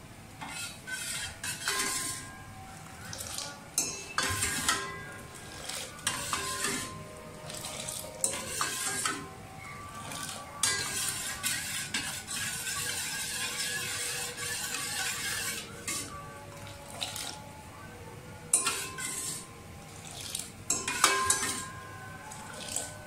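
A steel ladle beating boiling Kashmiri tea in a steel pot, clanking and scraping against the pot with the liquid sloshing; it is continuous beating to develop the tea's pink colour. About halfway through there is a longer stretch of steady sloshing.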